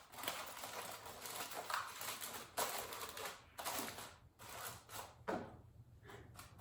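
Aluminium foil being crumpled and pressed around paper cups: irregular crinkling and crunching in uneven bursts.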